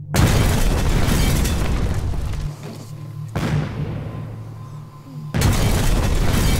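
Three loud explosion booms over a music score, the first at the very start, the next about three seconds later and the last about two seconds after that, each dying away over a couple of seconds; the last is a wooden building blowing apart in a fireball.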